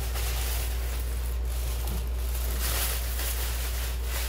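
Plastic grocery bags rustling in irregular bursts as they are handled and unpacked, over a steady low hum.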